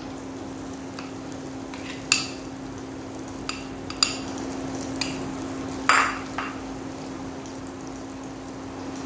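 Coarsely ground moong dal going into hot oil in a nonstick pan with a light sizzle, while a metal spoon scrapes and taps against a glass bowl and the pan about seven times; the loudest tap, about six seconds in, rings briefly. A steady low hum runs underneath.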